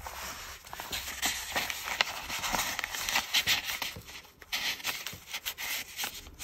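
Paper rustling and scraping as a card is slid into a paper pocket of a handmade journal and the pages are handled, with many small clicks and taps.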